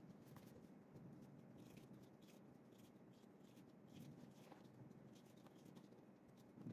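Faint scratching of a pen writing on paper, in short irregular strokes.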